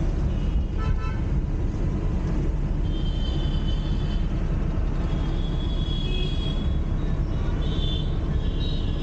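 Steady engine and road rumble heard from inside a car moving through city traffic, with several horn toots from surrounding vehicles: one about three seconds in, a longer one about five seconds in, and two short ones near the end.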